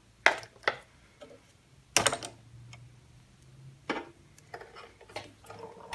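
Scattered sharp clicks and knocks, about five in all and loudest about two seconds in, from a wooden workpiece being handled and nudged on a drill press's metal table while a small bit is lined up over a marked dot. A faint low hum sits underneath for the first few seconds.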